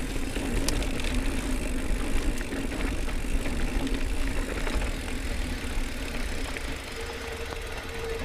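Mountain bike rolling along a dry dirt singletrack: steady rushing tyre and trail noise with the bike rattling over the bumps, and a few small clicks.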